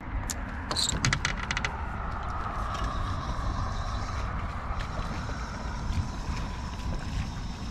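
Spinning reel being cranked, a steady whir lasting several seconds after a quick run of sharp clicks in the first second or two, over low wind rumble on the microphone.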